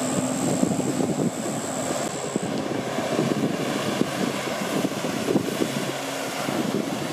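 Water jetpack in flight: the engine-driven pump in its floating base unit runs steadily, forcing water up the hose, mixed with the rush of the water jets spraying onto the water.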